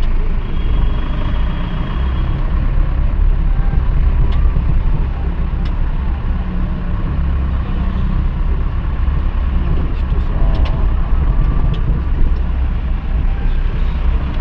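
Vehicle interior noise while driving: a steady low engine and road rumble heard from inside the cabin.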